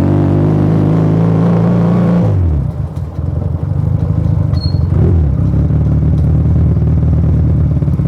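Motomel Rider 250 motorcycle engine running at steady revs, then the throttle closes about two seconds in and the revs fall away to a low, pulsing idle rumble. Near the middle there is a short rise and fall in revs, and a brief high beep.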